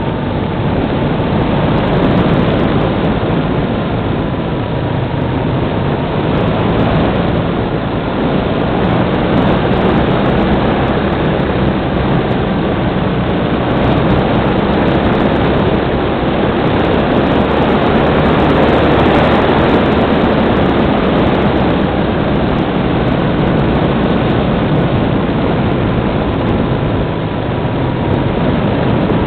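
Onboard sound of a Multiplex Cularis electric-powered glider in flight: its motor and propeller running steadily, a faint whine wavering slightly in pitch, under a loud, even rush of wind over the microphone.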